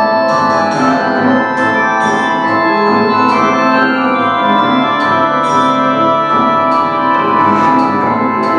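Music with sustained chords played through homemade PVC pipe speakers, picked up by a camcorder's microphone in a large room.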